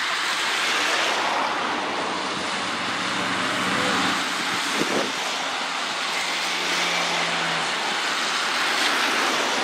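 Steady rushing noise of wind on the microphone. A faint low engine hum runs from about two seconds in until near the end, and there is a single click about halfway.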